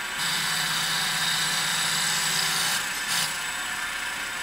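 Mini CNC wood lathe running with a steady machine whine. It turns louder and rasping for the first two and a half seconds or so, then drops back, with a brief burst about three seconds in.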